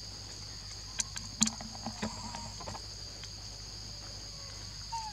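Steady high-pitched drone of insects, with a few sharp clicks and taps about a second in, the loudest just after, and a couple of short faint chirps, one falling near the end.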